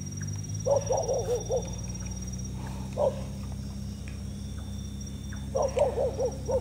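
Dog barking in quick runs of short barks: a run about a second in, a single bark around three seconds, and another run near the end.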